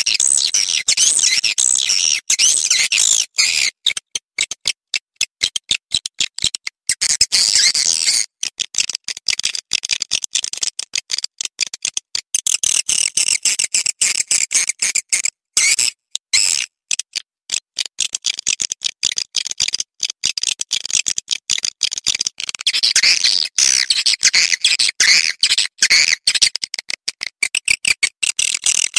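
Swiftlet calling-sound recording: a dense stream of high chirps and twitters over fast clicking, a lure played to draw swiftlets into a nesting house. The clicking briefly thins out about halfway through.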